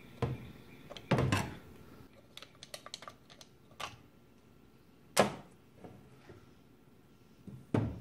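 Clicks and knocks of a Farmall A's magneto being taken apart by hand on a steel workbench: small metal parts handled and set down, with a quick run of light clicks a couple of seconds in and sharper knocks about a second in, about five seconds in and near the end.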